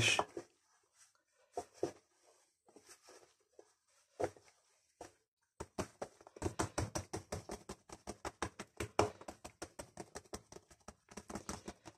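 Fingertips pressing and patting soft bread dough flat against a floured wooden board. A couple of soft taps at first, then from about halfway through a quick run of light pats, several a second.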